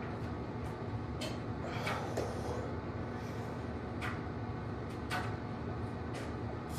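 A few light clicks and knocks from a plate-loaded barbell and preacher-curl bench during curl reps, spaced a second or more apart, over a steady low hum.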